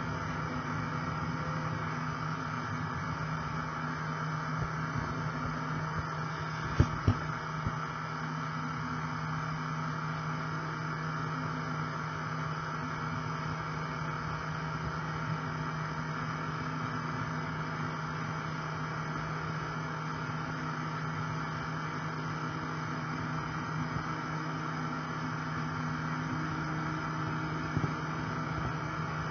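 Model railway train running along the track: a steady electric motor hum and wheel rumble on the rails. There are two sharp clicks about seven seconds in and another near the end.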